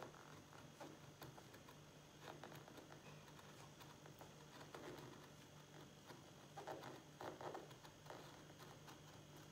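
Faint scratching of a precision craft knife cutting printed paper on a cutting mat, in a few short strokes, with a cluster of them a little after halfway.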